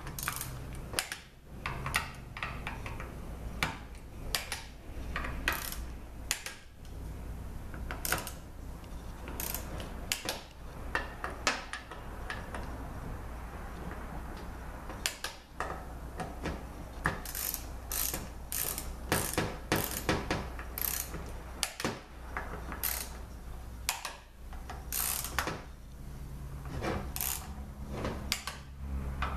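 Hand ratchet clicking in repeated runs as bolts are run down on a 5L40E transmission valve body, over a low steady hum.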